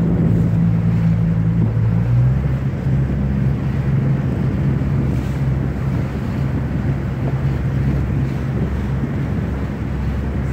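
Outboard motor of an inflatable boat running steadily, its pitch shifting slightly about two seconds in, with wind buffeting the microphone.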